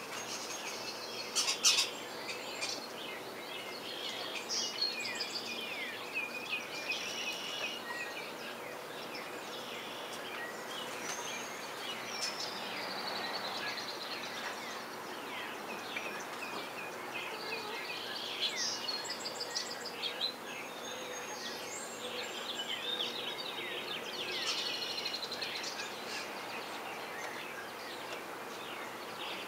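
Small songbirds chirping and calling on and off, many short quick downward-sweeping chirps, over a faint steady hum. A couple of sharp taps about a second and a half in are the loudest sounds.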